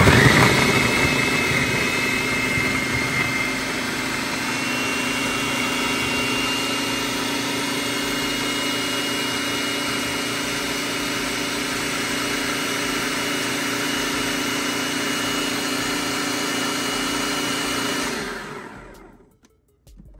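Electric food processor motor running at full speed, grinding raw green bananas, plantains and yautía with broth into a fine masa: a steady hum with a high whine, switched on at the start and winding down to a stop near the end.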